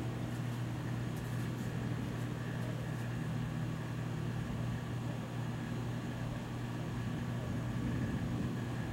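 A steady low mechanical hum with a faint high whine above it and a few faint clicks in the first three seconds.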